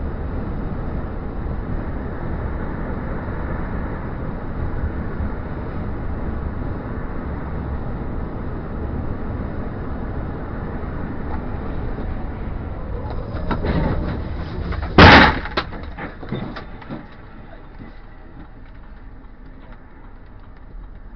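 Steady road and tyre noise inside a car driving on a motorway, then about fifteen seconds in a single very loud crash of a traffic collision, followed by a few seconds of clattering debris; the road noise then falls away as the car slows to a stop.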